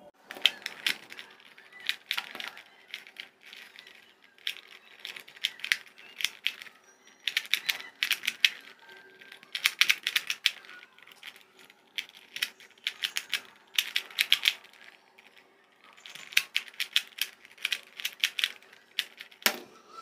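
Plastic 2x2 Rubik's cube being turned by hand: quick runs of clicks as the layers snap round, in bursts with short pauses between them.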